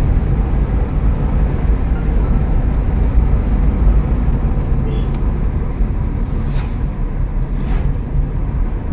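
Car driving at steady speed, heard from inside the cabin: a continuous low rumble of engine and road noise. Two short clicks stand out a little after halfway.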